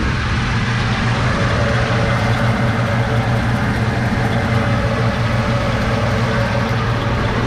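1953 Chevrolet panel truck's inline six-cylinder engine idling steadily, heard from over the open engine bay. It runs nice and smooth, and the owner takes its only trouble to be the carburetor.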